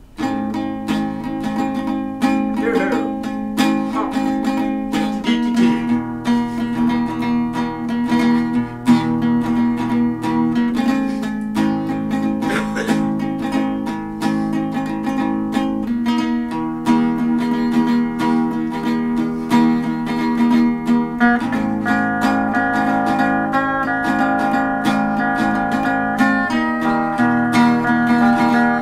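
Acoustic guitar strummed, moving to a new chord about every five seconds.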